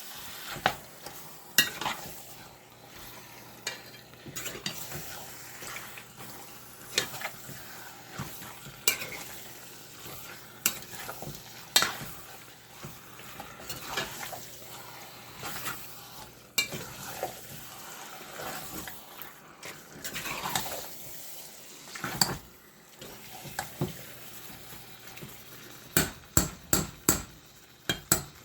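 Chicken pieces being stirred through thick curry in a pot on high heat: a spoon knocks and scrapes against the pot over a steady sizzle, with a quick run of knocks near the end.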